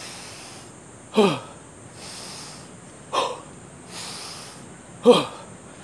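A man doing deliberate deep breathing after a workout. A hissing inhale alternates with three forceful exhales about two seconds apart, each a loud voiced "hah" that falls in pitch.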